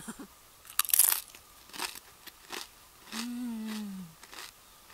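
A Doritos tortilla chip bitten off with one loud crunch about a second in, then chewed with short crunches every half second or so. About three seconds in, a closed-mouth 'mmm' hum of about a second sounds over the chewing, sinking in pitch at its end.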